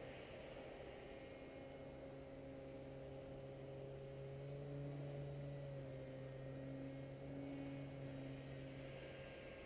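Distant paramotor engine droning steadily overhead, its pitch wavering slightly and growing a little louder midway.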